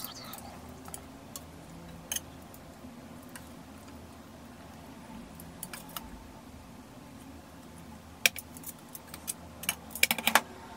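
Scattered light clicks and clinks of a utensil against a cast-iron serving dish as oden pieces are placed in it, with a quick cluster of sharper clinks near the end. A faint low hum runs underneath.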